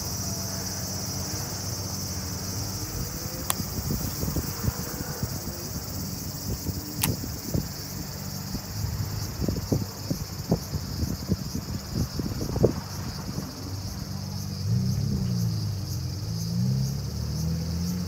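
A steady, high-pitched insect chorus over a low engine hum. Irregular low thumps sound on the microphone in the middle stretch, and a couple of sharp ticks come early on. Near the end the engine note rises and falls.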